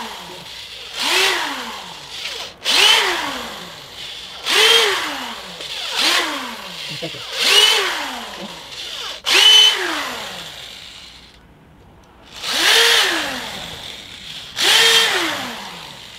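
Corded electric drill with a countersink bit boring countersinks into wooden planks, in about nine short trigger bursts. In each burst the motor spins up and then winds down in pitch, with a pause of about two seconds after the seventh.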